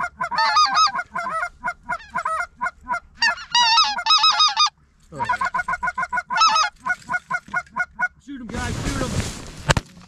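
Goose calling: quick runs of high, wavering yelps with a short break about halfway through. Near the end comes a rush of noise, and then the first shotgun blasts.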